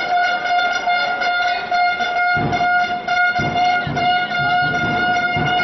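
A horn held on one long steady note, with a series of low thumps starting about two and a half seconds in.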